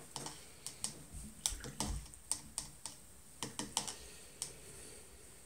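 Thin paintbrush being rinsed in a small ceramic water cup, clicking and tapping irregularly against the cup's sides, several light taps a second, stopping about four and a half seconds in.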